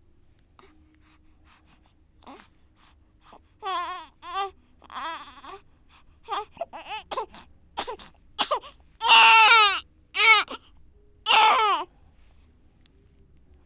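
One-month-old baby crying in separate short, falling cries and whimpers, building to louder wails, then stopping near the end.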